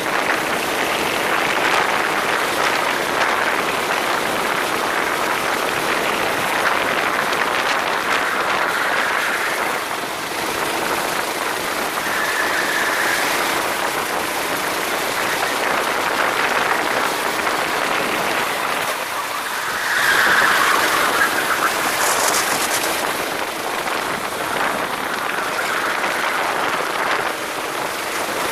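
Go-kart running at racing speed: a steady rushing noise of wind and the moving kart, louder for a couple of seconds about twenty seconds in.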